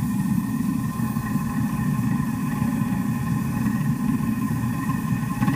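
Propane burner of a furnace heating an anvil, running steadily: a low rumbling rush with faint steady whistling tones above it.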